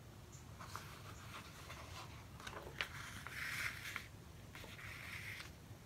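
Sewing thread being drawn through the punched holes of a paper signature and the book cover: faint rasping hisses, two longer pulls about midway and near the end, with a few light clicks of paper being handled.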